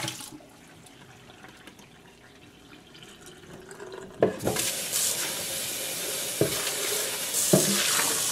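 Water and fish fillets splashing briefly from a plastic bucket into a metal colander in a stainless steel sink, then a few seconds of quiet. About four seconds in, a sharp knock and a few clunks as the bucket is set down in the steel sink, and near the end the faucet is opened, water running into the sink.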